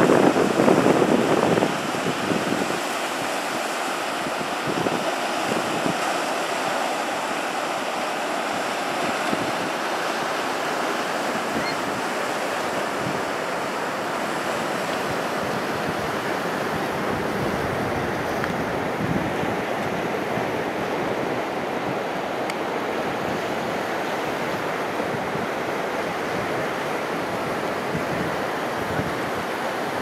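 Ocean surf breaking and washing up the beach. A louder wave breaks in the first couple of seconds, then an even, steady wash.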